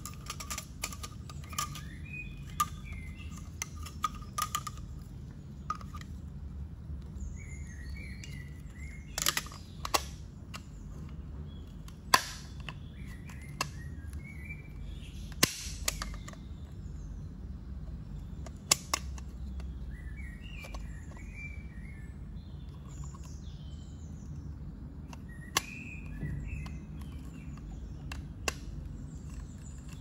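Irregular sharp plastic clicks and knocks from the Jimmy BX7 Pro vacuum's dust cup and mesh cyclone filter being handled and twisted together. Birds chirp in the background over a low steady rumble.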